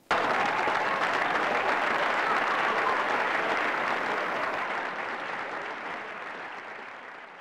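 Applause from a crowd, starting abruptly and fading out over the last few seconds.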